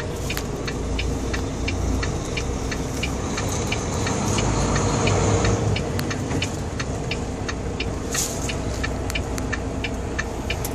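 Semi truck's diesel engine running, heard inside the cab, swelling louder for a couple of seconds near the middle. A regular ticking, about three times a second, runs over it.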